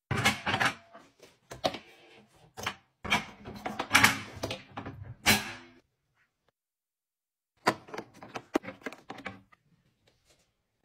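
Spring-loaded metal appliance lift mechanism in a kitchen cabinet clunking and rattling as its shelf is swung down into the cabinet: a run of knocks and scraping, a pause of about two seconds, then another short cluster of knocks.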